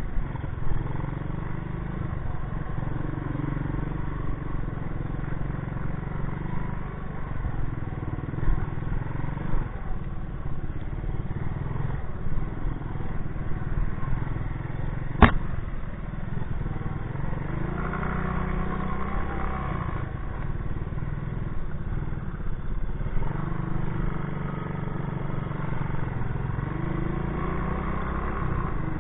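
Honda 200S ATC three-wheeler's air-cooled single-cylinder four-stroke engine running under way on a grassy trail, rising in pitch a few times as the throttle opens. A single sharp knock about halfway through.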